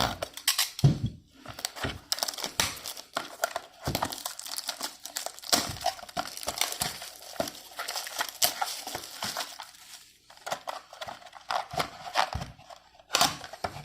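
Plastic wrapping crinkling and tearing and cardboard rustling as a sealed trading-card box is opened by hand, in quick irregular crackles with a short lull about ten seconds in.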